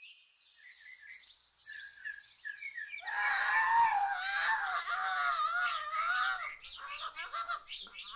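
Birds chirping in repeated short calls. About three seconds in, a loud, high, wavering vocal howl rises over them for about three seconds, then the chirping carries on alone.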